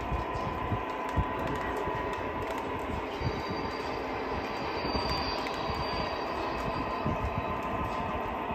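O scale model freight cars rolling steadily over the track on a bridge, a continuous rumble of metal wheels with a few clicks at the rail joints. A faint high whine rises in the middle and fades.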